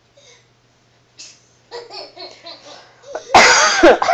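A young child laughing loudly, starting a little over three seconds in, after some softer vocal sounds.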